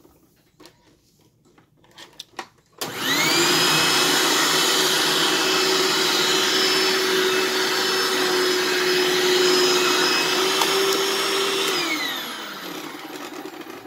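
Bagged Hoover WindTunnel upright vacuum cleaner switched on after a few clicks: the motor whines up to speed and runs steadily. Near the end it is switched off and the whine falls away as the motor spins down.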